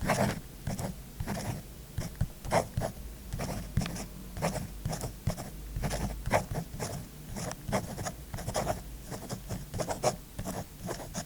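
Scribbling on paper with a writing tool: a rapid, uneven run of short strokes, several a second.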